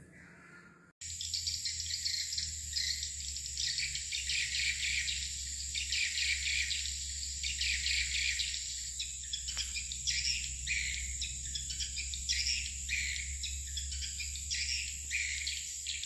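Swiftlets twittering in a dense stream of rapid short chirps, beginning about a second in, over a steady high-pitched tone and a low rumble.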